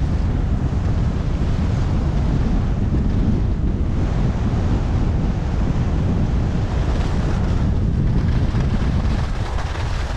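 Wind buffeting the camera microphone while skiing downhill, mixed with the steady hiss of skis sliding over packed snow. It eases a little near the end as the skier slows.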